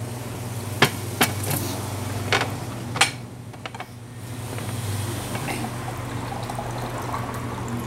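Eating and food-handling noises from crispy fried snacks such as chicharon and crackers: a few sharp crunches and clicks in the first few seconds, over a steady low hum.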